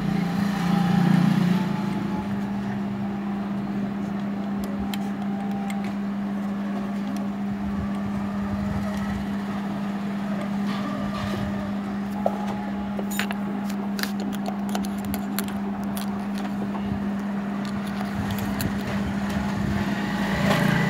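A steady low hum, with a few faint metallic clicks near the middle, as the needle and hook mechanism of a Jack automatic industrial sewing machine is turned slowly by hand to set the shuttle timing.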